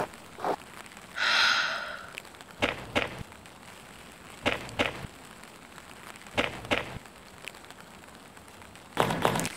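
Sound effects: a short pitched breath-like sound about a second in, then soft paired knocks about every two seconds, and a burst of crackling near the end.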